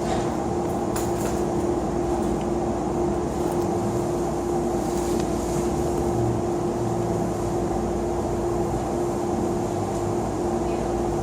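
A fan running steadily, a constant hum with one fixed tone over an even whir, with a few faint clicks near the start.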